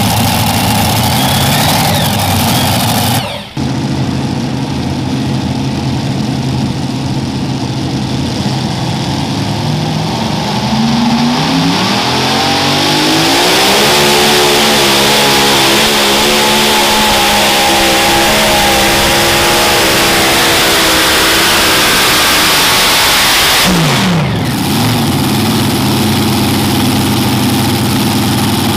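Alcohol-fuelled super modified pulling tractor engines idling, then revving up about ten seconds in and held at high revs for about ten seconds before dropping quickly back to idle.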